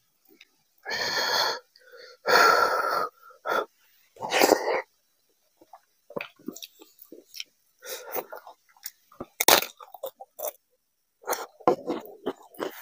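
Three loud, hissing breaths about a second and a half apart, from a man cooling his mouth on a mouthful of very hot khichdi, then quiet wet chewing and mouth clicks as he eats by hand.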